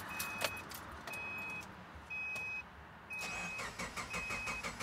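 A car's warning chime beeps steadily about once a second. About three seconds in, the starter begins cranking the 2009 Subaru Forester's 2.5 L EJ253 flat-four with a quick, even rhythm. The engine does not fire because the fuel pump relay is pulled; this is a no-start crank to push oil through a freshly installed engine.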